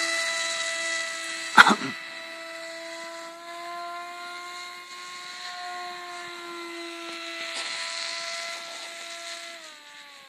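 Electric motor and propeller of a radio-controlled motor glider in flight, a steady high whine that fades as the plane climbs away and falls in pitch near the end. A single sharp knock about a second and a half in.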